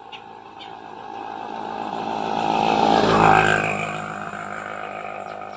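A small vehicle engine, motorcycle-like, running and growing louder to a peak about three seconds in, then fading away, as when a vehicle passes by.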